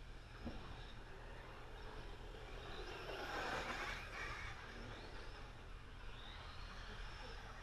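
Faint running of a radio-controlled off-road car on a dirt track. It swells to its loudest around three to four seconds in as the car passes nearer, then fades.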